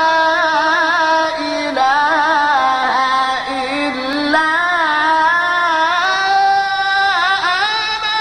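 A male Quran reciter chanting in maqam Rast, drawing each phrase out into long melismatic lines with quick vocal trills. The pitch dips lower through the middle and climbs back up.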